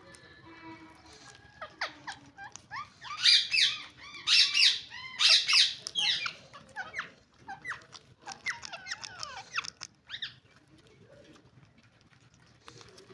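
Green ringneck parakeets calling: short, harsh chattering calls that bend up and down in pitch, loudest in bunches a few seconds in, then quicker chirps, growing faint about ten seconds in.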